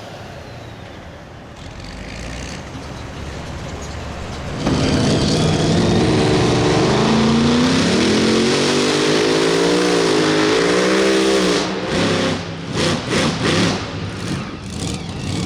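A pulling vehicle's engine at high revs comes in loud about four and a half seconds in. Its pitch rises and falls as it runs under load, then it breaks up into choppy bursts near the end.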